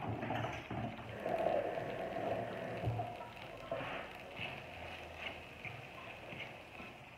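Creamy spaghetti sizzling softly in a hot nonstick frying pan while it is stirred and tossed with a spatula and then a fork, with a few light clicks and scrapes of the utensils against the pan.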